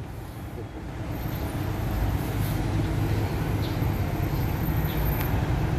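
A motor vehicle's engine running steadily as a low rumble that grows a little louder after about a second, with a faint click near the end.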